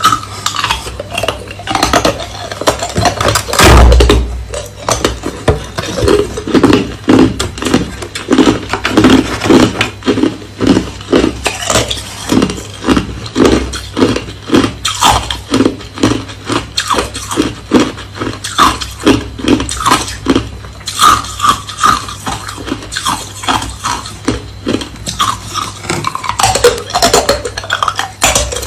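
Hard crushed ice being chewed close to the microphone: a steady run of crisp crunches, about two to three a second, with one heavy thump about four seconds in.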